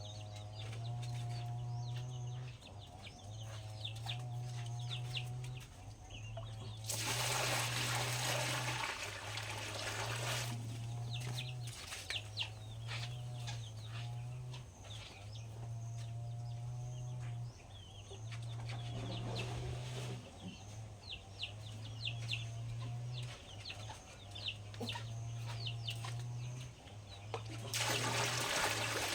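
Chickens clucking and peeping, over a low hum that pulses on and off. Loud rushing noise breaks in about seven seconds in for a few seconds, and again near the end.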